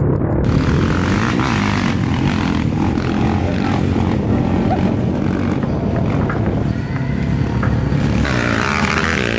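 Several dirt bike engines running as the bikes are ridden over rough off-road ground.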